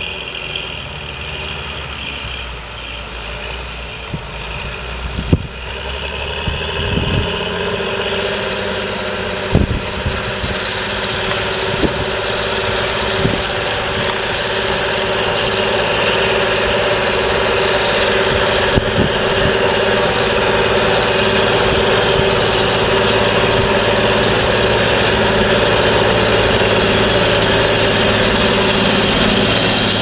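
John Deere tractor's diesel engine working steadily as it pulls a mounted reversible plough, growing louder as the tractor approaches and passes close by. A few short, sharp knocks sound in the first half.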